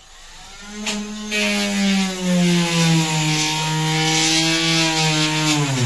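Handheld cordless power tool running against an old bus window frame, its motor tone joined by a scraping, grinding noise about a second in. The motor's pitch sags slowly under load and drops sharply near the end as it slows down.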